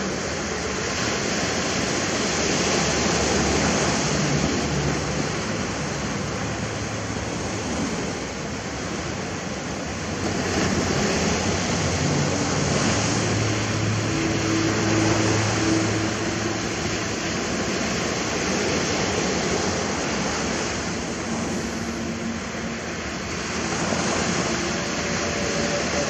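Ocean surf washing onto a sandy shore: a continuous wash of waves that swells and eases every several seconds, with faint low hums coming and going underneath.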